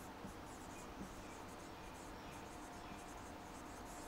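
Marker pen writing on a whiteboard: faint, irregular scratching and squeaking in a string of short strokes as letters are written.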